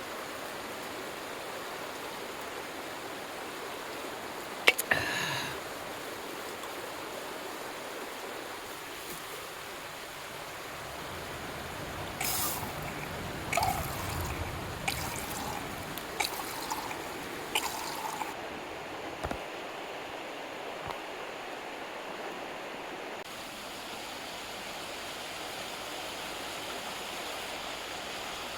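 Mountain stream flowing steadily. About five seconds in comes a sharp clink with a brief ring, and later a run of small clicks and knocks.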